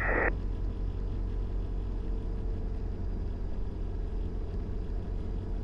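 Diamond DA20 light aircraft engine idling on the ground: a steady low drone heard from inside the cockpit.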